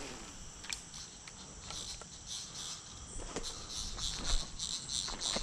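Chorus of insects chirping: a steady high-pitched drone with rhythmic chirps pulsing over it, getting louder in the second half, and a few faint clicks.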